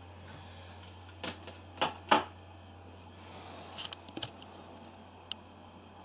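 Handling noise from a handheld camera: a few sharp clicks and knocks, the loudest two close together about two seconds in and a quick cluster near four seconds, over a steady low hum.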